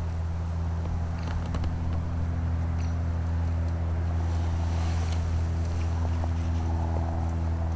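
A steady low hum of an engine or motor running at a constant speed, with a few faint clicks about a second in.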